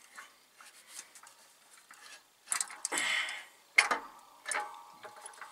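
An Eaton Fuller Solo clutch pressure plate being worked over the flywheel's guide pins by hand, metal on metal. There are light clicks at first, then about halfway through a scrape followed by a couple of sharp clanks as the plate slides past the pins.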